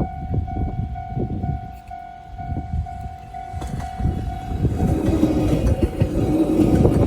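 Railway level-crossing warning bell ringing in a steady repeated ding, about two strikes a second, while a train passes with rumbling and wheel clatter. About five seconds in, a louder steady tone joins the rumble.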